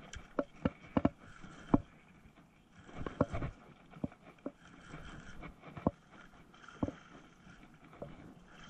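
Spinning reel being cranked, its gear whir coming and going in spells, with sharp clicks and knocks at uneven intervals from the rod and reel being handled; the loudest knock comes about a second and a half in. The reeling is a hooked fish being brought in.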